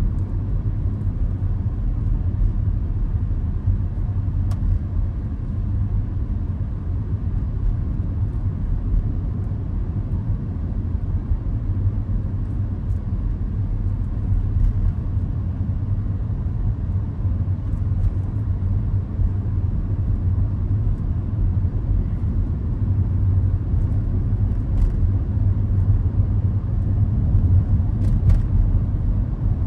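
Steady low rumble of road and engine noise inside the cabin of a 2013 Range Rover Sport 5.0 V8 driving on a city road.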